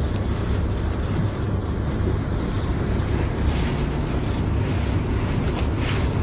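A boat's engine running steadily, a continuous low rumble with a rushing noise over it.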